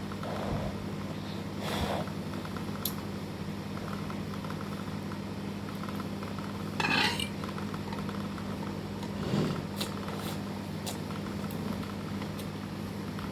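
Cutlery clinking and scraping against a bowl of noodles during eating: a few short, separate clicks and brief scrapes, the strongest about halfway through, over a steady low hum.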